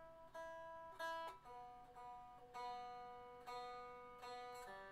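Stratocaster electric guitar strings plucked softly, one note about every half second to second, each ringing and fading, with the pitch changing a few times as a tuning peg is turned. The guitar is being retuned after a string went out of tune.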